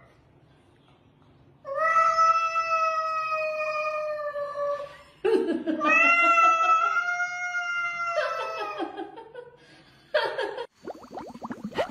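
A cat yowling at another cat in a standoff: two long, drawn-out caterwauls of about three seconds each, the second sliding up at its start, then a fainter, lower call and a short harsh burst near the end.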